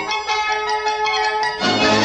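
Instrumental music with many changing notes. It turns louder and fuller about one and a half seconds in.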